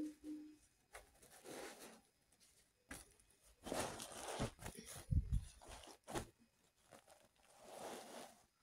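Rustling and swishing of embroidered fabric pieces being picked up and shifted by hand, in several separate bursts, with a soft low thump about five seconds in.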